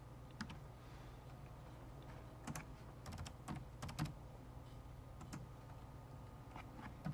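Faint computer keyboard keystrokes in scattered short runs, with quick clusters of taps about two and a half and four seconds in.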